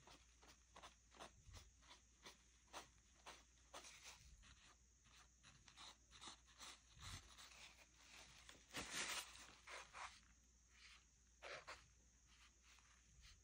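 Faint scratchy rustling of a crumpled paper towel rubbed and dabbed over a painted canvas, in short irregular strokes, with a louder scrubbing patch about nine seconds in.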